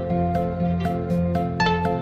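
Soft instrumental background music with plucked notes on a steady beat.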